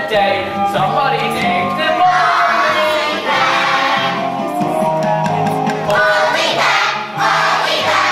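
A children's chorus singing together over musical accompaniment.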